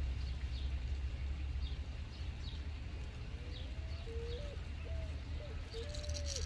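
Steady low outdoor rumble with faint high chirps recurring about once a second; from about three seconds in, a bird calls a run of short, low, whistled notes, several of them in quick succession.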